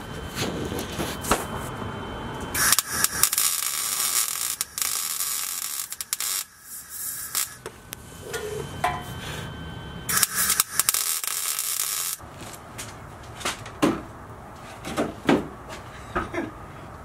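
MIG welder welding steel exhaust pipe joints: two runs of steady crackling sizzle, the first about five seconds long and the second about two, with scattered knocks and clicks between and after.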